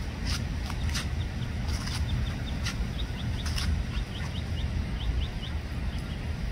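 Young Muscovy ducks giving a string of quick, short high peeps in the middle of the stretch. Under them runs a steady low background rumble, with sharp ticks about once a second.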